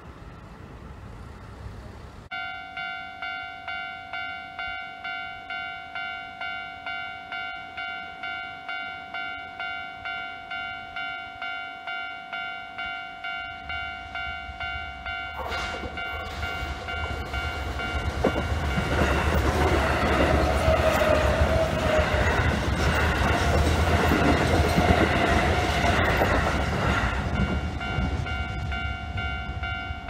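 Japanese level-crossing alarm bell ringing in steady electronic dings, about two strokes a second, starting a couple of seconds in. From about halfway a Keio Line commuter train comes up and passes, its running noise and wheels on the rails swelling, then easing near the end while the bell keeps ringing.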